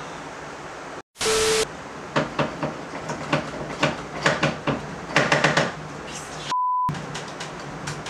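Objects and cables knocking and clattering as they are handled on a cluttered shelf, in a run of sharp knocks. About a second in there is a short, loud burst of hiss with a low tone in it, and near the end a short, steady beep.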